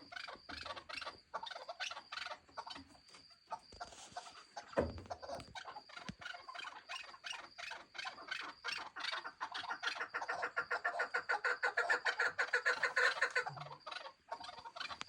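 Partridges calling: a long series of short clucking notes in quick succession, building about ten seconds in into a louder, faster run that stops shortly before the end.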